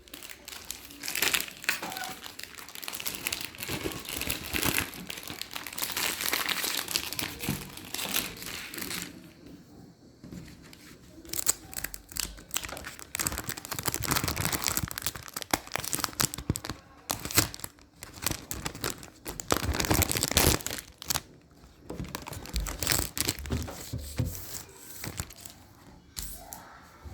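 Packaging being crinkled and torn open by hand during an unboxing, in irregular bursts of rustling and crackling with short pauses in between.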